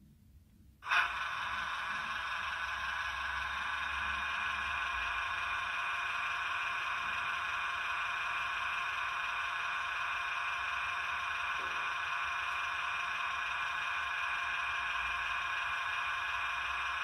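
Dapol Class 68 model locomotive's DCC sound decoder playing a steady mechanical running sound through its small onboard speaker, thin and without bass. It cuts in suddenly about a second in and then runs on unchanged.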